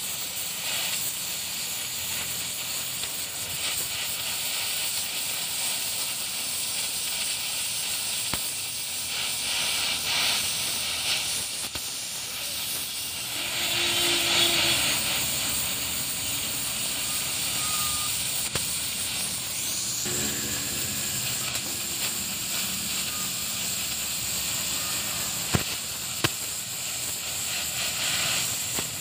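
Gas welding torch flame hissing steadily while melting a brass filler rod onto a steel pipe. The hiss swells briefly about halfway, and two sharp clicks come near the end.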